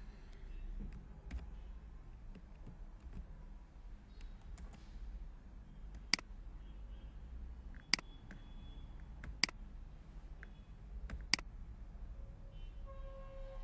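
Computer mouse clicking: four sharp clicks spaced about one and a half to two seconds apart, with a few fainter ticks before them, over a low steady hum.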